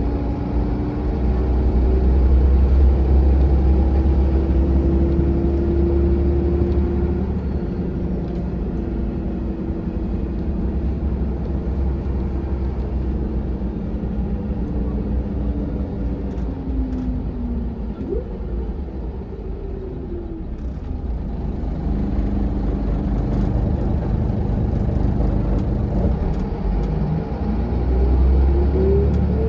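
Cabin sound of a 2001 Volvo B7R bus with a Volgren CR221 body under way: its six-cylinder diesel engine running over a steady low rumble and road noise. The engine note climbs and drops several times as the bus accelerates and eases off.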